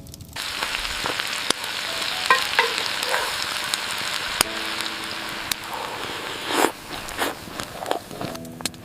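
Food frying in a pan: a steady sizzle dotted with scattered pops and clicks.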